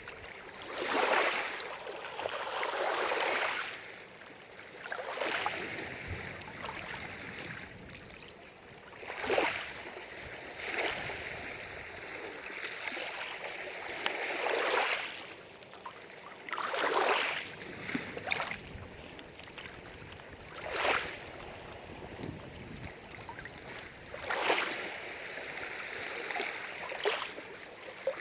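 Small lake waves lapping and splashing against the shore, in irregular surges every few seconds.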